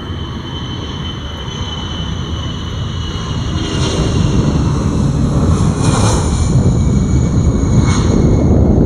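Lockheed Martin C-130J-30 Hercules's four Rolls-Royce AE 2100 turboprop engines running: a low rumble with a high whine on top, growing steadily louder while the whine sinks slightly in pitch.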